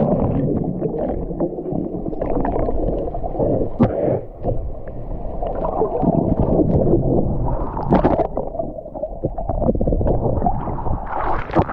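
Muffled water sloshing and gurgling around a camera held in the sea, with a few short splashes about four and eight seconds in and again near the end.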